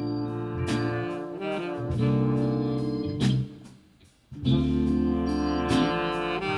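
Military band with saxophones and brass playing a jazzy arrangement of Christmas music. The band stops briefly about three and a half seconds in, then comes back in together with a drum hit.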